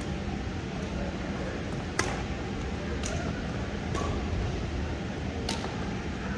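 Badminton rackets striking a shuttlecock in a doubles rally: four sharp pocks, roughly a second apart, the loudest about two seconds in. Under them runs a steady low hum.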